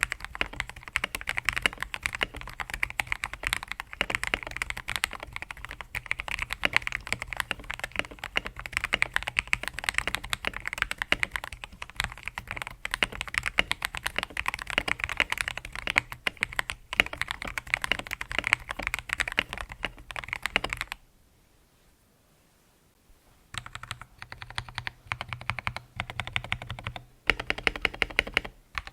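Fast continuous typing on a TM680 mechanical keyboard with lubed Akko CS Matcha Green linear switches and bubble XDA PBT keycaps; the board is tape-modded and foam-dampened. Typing stops for about two seconds roughly three-quarters of the way through, then resumes.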